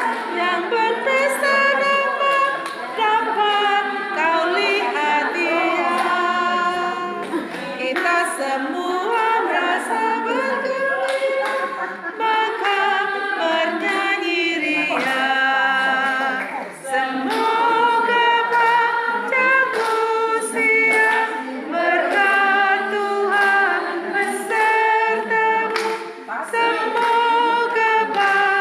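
A group of voices singing a song together without instruments, choir-style, with long held notes.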